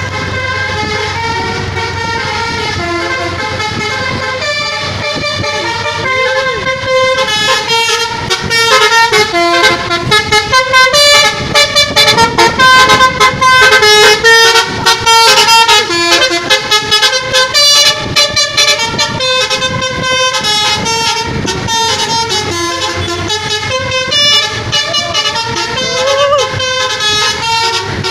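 Bus 'telolet' musical horn playing a tune of loud held notes, breaking into a run of quick short toots through the middle.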